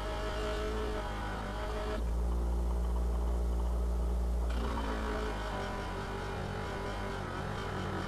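HYET 6-inch, 1/2 hp bench grinder-buffer running with a steady electric motor hum while a rusty axe head is held against its wheel, giving a scrubbing noise. About two seconds in, the axe head is lifted off and the scrubbing stops, leaving only the motor hum; it resumes about two and a half seconds later as the head goes back on the wheel.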